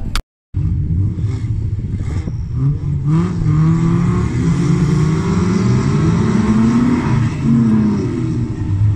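Autocross race car engines revving hard, their pitch repeatedly climbing and dropping as they accelerate and change gear, at times overlapping.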